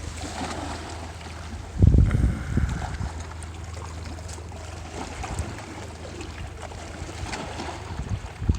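Shoreline ambience: a steady low wind rumble on the microphone with light water noise, a strong gust buffeting the mic about two seconds in, and a few small handling clicks.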